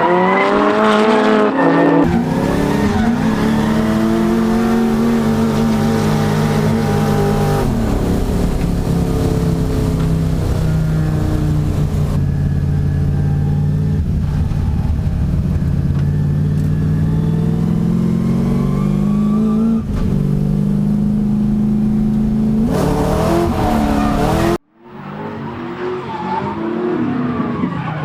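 Nissan S13 and S14 drift cars running at high revs in a tandem drift, the engine note held and swinging up and down in pitch, with tyre noise. The sound cuts off abruptly near the end, then an engine revs again.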